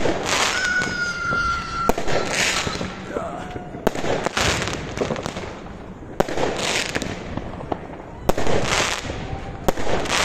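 Fireworks going off overhead in a steady sequence: about every two seconds a hissing, crackling burst, with sharp bangs in between. A high whistle sounds from about half a second to two seconds in.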